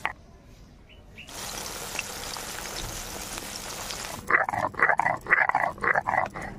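Garam masala being ground to a wet paste on a flat stone slab with a stone roller (sil-nora): a rhythmic back-and-forth rasp, about four strokes a second, starting a little after four seconds in. Before that, a brief quiet and then a steady hiss lasting about three seconds.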